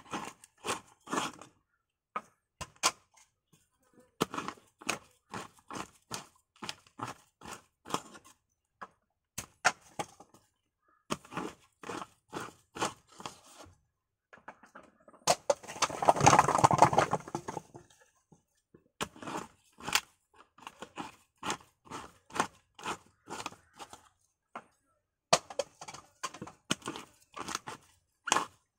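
Coconut meat being pried out of the shell for copra with a metal copra scoop (tukalan): quick runs of sharp cracks and knocks, with a longer, louder scraping crunch about halfway through.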